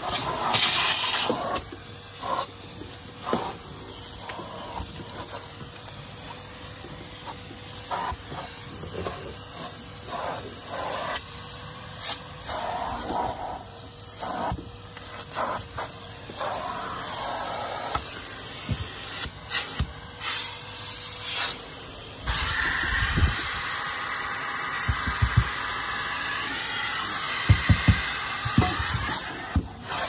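Henry cylinder vacuum cleaner running as its hose nozzle works over a car's interior, a steady suction hiss broken by short knocks and rubs of the nozzle. The suction gets louder a little over two-thirds of the way through.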